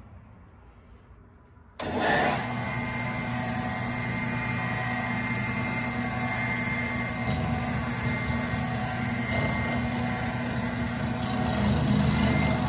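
Small combination lathe-mill switched on about two seconds in, its spindle motor and gearing then running steadily with a faint high whine.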